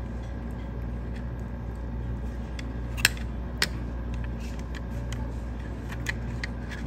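Steady low hum of kitchen equipment, with scattered light clicks and clinks of utensils. Two sharper clicks come about three seconds in, half a second apart.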